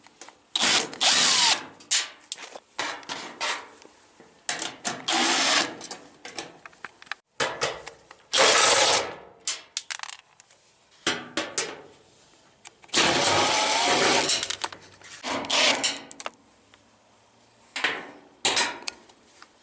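A power drill fitted with a 1/4-inch socket spinning out the sheet-metal bolts of a dryer's back panel, running in several short bursts of about a second each, with the rattle of bolts and panel between them.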